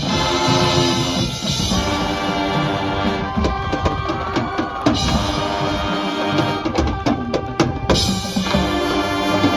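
High school marching band playing: held brass and wind chords at the start and again near the end, with a run of sharp drum-line hits in between.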